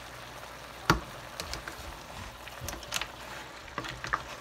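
Wooden spatula stirring vegetables and mussels in a stainless steel sauté pan, with a light sizzle under several sharp knocks and clacks of the spatula and shells against the pan. The loudest knock comes about a second in.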